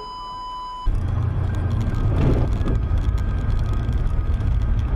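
A steady electronic beep lasting under a second, then, after a sudden cut about a second in, the steady low rumble of a car driving on a slushy snow-covered highway, heard from inside the cabin.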